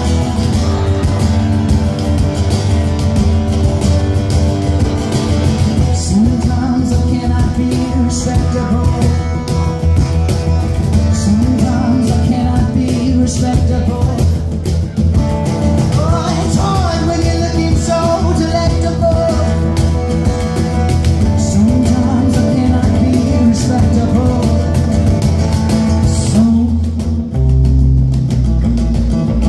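Live acoustic rock band playing: acoustic guitars with a bass line and a singing voice at times. Near the end the upper range drops away and only low bass notes are left.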